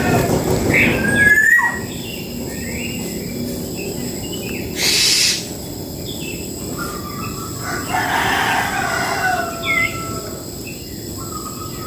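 Birds calling, with repeated short whistled notes that slide up and down. A louder call fills the first second or so, and a short hiss comes about five seconds in.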